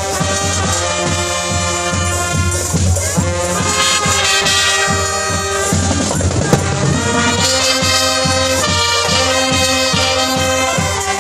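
Brass band music: trumpets and trombone playing a sustained melody over a steady, regular bass beat.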